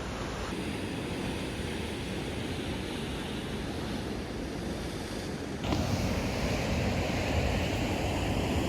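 Ocean surf breaking on a rocky shore, with wind buffeting the microphone; the surf noise gets suddenly louder a little over halfway through.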